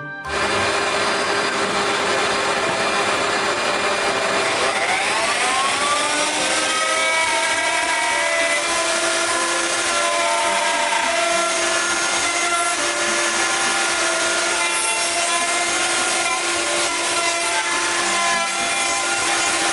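Electric router running and cutting into a cedar cross-section to hollow a recess for a clock mechanism. It starts suddenly, its pitch climbs over a few seconds as it comes up to speed, then it holds steady with small shifts in pitch as the bit bites into the wood.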